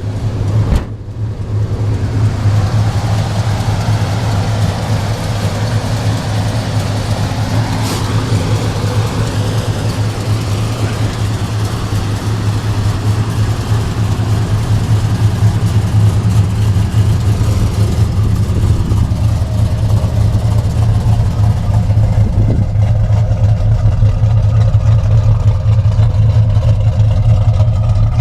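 Muscle car engine running loudly with a deep, steady low drone. A brief break comes right at the start.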